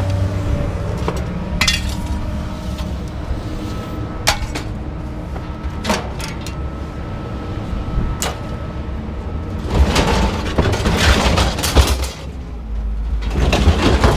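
Scrap metal being handled: scattered sharp clanks and knocks, then longer stretches of clattering near the middle and the end, over a low steady rumble.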